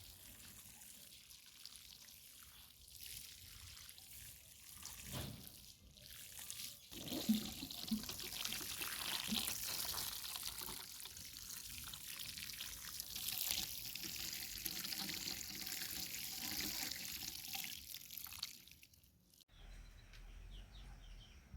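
Faint running water, a steady hiss of pouring or trickling that starts about a third of the way in and cuts off abruptly near the end.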